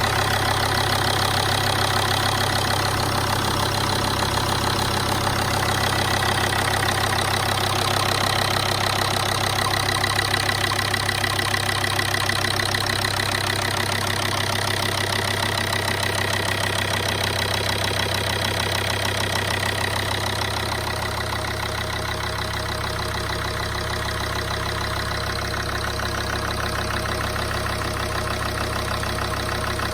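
Volvo XC90 2.4 five-cylinder turbodiesel (185 hp) idling steadily. It runs harshly, with a metallic knock that the owner is pointing out as a fault.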